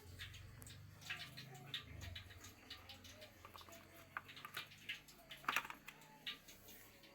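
Scattered light clicks and taps of small objects being handled, loudest about five and a half seconds in, over a faint low hum.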